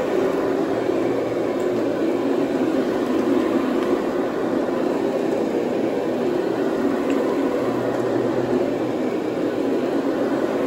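Counter-rotating brush (CRB) carpet machine running steadily, agitating the encapsulation cleaner into the carpet.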